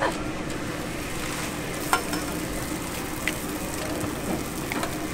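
Coconut oil sizzling steadily on a flat griddle pan, with a sharp clink about two seconds in and a fainter tick a little after three seconds.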